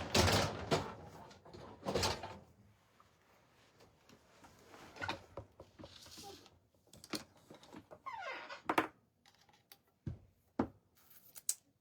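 Handling noises on a craft table as a container of dark wax is opened: rustling and scraping with scattered knocks and clicks, the loudest in the first two seconds and a cluster of sharp clicks near the end.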